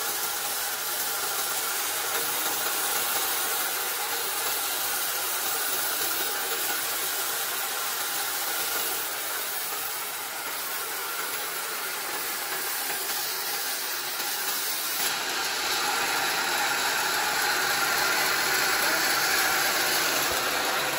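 Horizontal band sawmill driven by a 4 HP electric motor, running steadily as its band blade cuts through teak timber. A continuous even noise with a faint hum, growing a little louder about three-quarters of the way through.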